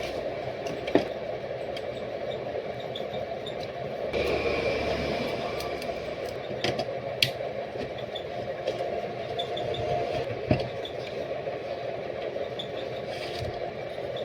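Steady mechanical hum with light clatter and scraping, and a few sharp clicks, about a second in, near the middle and two-thirds of the way through.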